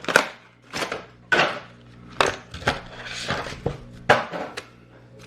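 Trading cards and their wrapping being handled and set down on a table: a string of short, sharp clicks and rustles, about eight in all.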